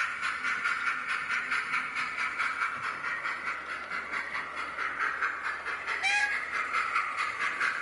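Hornby P2 model steam locomotive's Soundtraxx DCC sound decoder playing a steady run of rapid, even steam chuffs through its small onboard speaker, with a short whistle about six seconds in.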